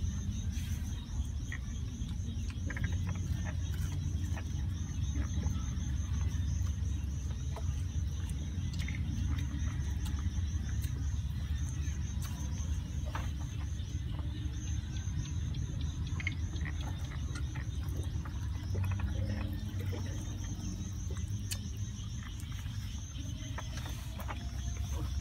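Insect chirping in a rapid, even high-pitched pulse, over a steady low rumble, with a few faint clicks and knocks.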